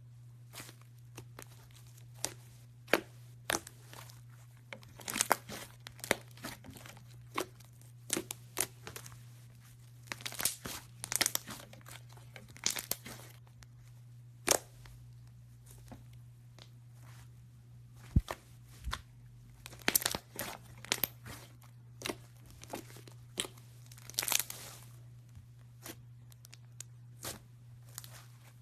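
Slime being mixed and squeezed by hand, giving irregular sticky pops and crackles, some singly and some in quick clusters. A steady low hum runs underneath.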